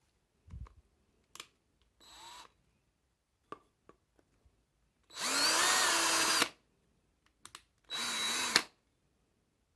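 Parkside PABS 20-LI E6 20V cordless drill boring into wood with a 5 mm drill bit in short runs. A brief quiet spin comes first, then two longer runs of about a second and a half and under a second, with small clicks and knocks between.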